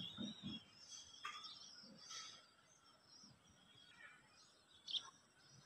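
Faint birds chirping outdoors: a few short, high calls, one about a second in sliding downward and a sharp one near the end, with a few soft low thumps at the very start.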